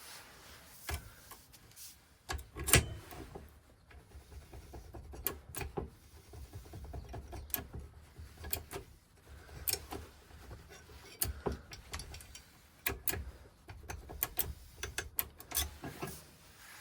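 Irregular clicks, knocks and rubbing of small metal parts being handled, as in working on lock cylinders with hand tools. There is one sharper knock about three seconds in.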